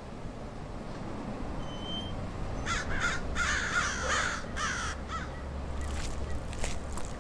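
Crows cawing: a quick run of harsh, repeated caws from about three seconds in until about five seconds, over a steady low rumble.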